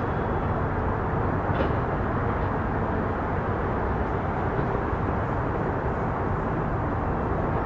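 CSX freight cars rolling past: a steady rumbling roll of wheels on rail.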